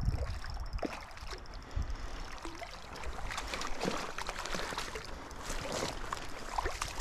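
A hooked sea trout splashing and thrashing in shallow water at the bank. In the second half come many short crackles as it is slid over dry grass and reeds.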